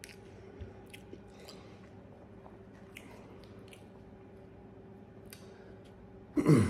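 A person chewing food with faint wet mouth clicks and smacks. Near the end comes a short, louder vocal sound that falls in pitch.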